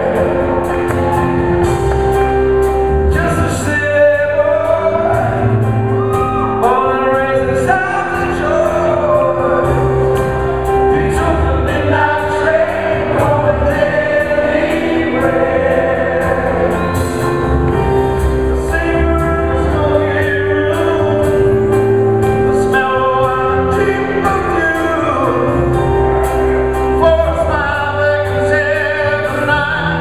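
Live music: several male and female singers singing together at microphones as an ensemble, backed by a band.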